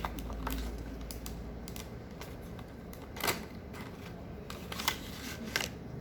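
Irregular clicks and light taps from small objects being handled, the loudest about three seconds in, over a low steady hum.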